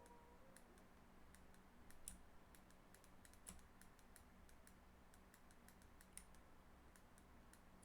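Near silence with faint, irregular clicks and taps from hands working computer input devices at a desk, over a faint low hum.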